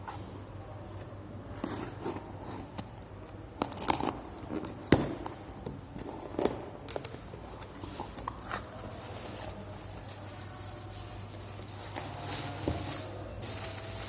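Packaging being opened and handled: tearing and crinkling with scattered sharp clicks and taps, and a longer rustle near the end.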